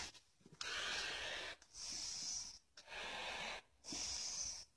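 A person breathing in and out through a face mask: four airy breaths about a second apart.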